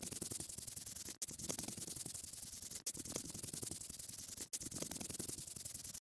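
Scratchy coloring sound effect, a brush or pen rubbing on paper, repeating in stretches about a second and a half long with a brief break between each.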